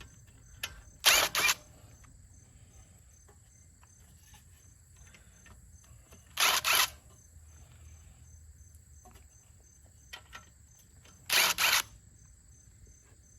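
Three short, sharp mechanical bursts about five seconds apart, each about half a second long and made of two quick strokes, over a faint steady high-pitched background tone.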